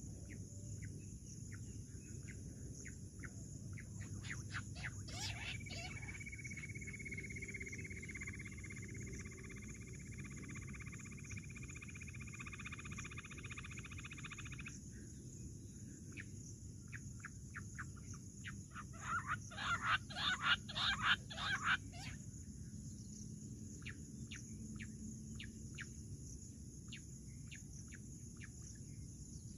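Jungle bush quail calling: a rapid run of sharp notes about twenty seconds in, the loudest sound here, with scattered single notes before and after. A steady high insect drone runs underneath, and a long even whistling tone is held from about five to fourteen seconds in.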